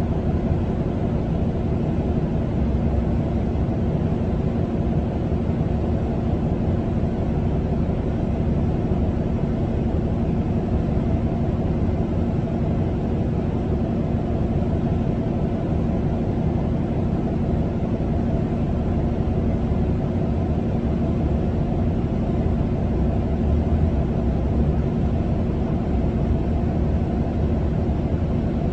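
Steady low rumble of road traffic and running engines, heard from behind a window, with a faint steady hum underneath.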